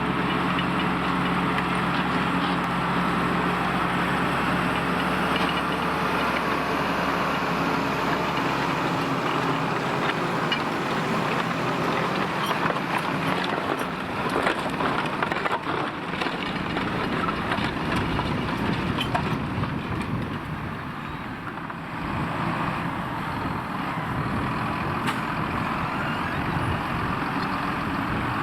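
Valtra T153 tractor's six-cylinder diesel engine running steadily while ploughing. About ten seconds in, the even engine note fades and gives way to a rougher, uneven low rumble.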